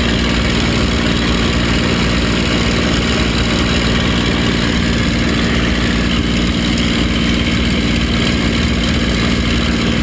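P-51 Mustang's V-12 engine and propeller droning steadily in flight, heard from inside the cockpit.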